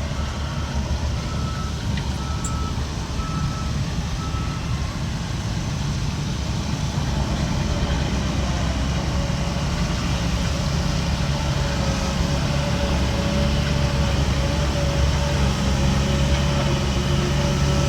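Heavy diesel construction machinery running, with a reversing alarm beeping about once a second that stops after about four seconds. From about halfway, the engine grows louder and a steady whine comes in.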